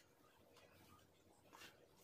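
Near silence: faint room tone, with one soft tap about one and a half seconds in.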